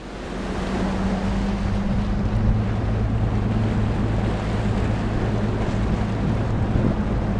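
Bass boat's outboard motor running at a steady speed with a low, even hum, under a rush of wind and water noise as the hull moves across the lake.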